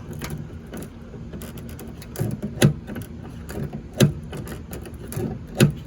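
Car door handle being worked and its latch clicking: several sharp clunks, the first about two and a half seconds in, then a couple more over the next few seconds, as the newly replaced handle on a 2004 Hyundai Accent is tried.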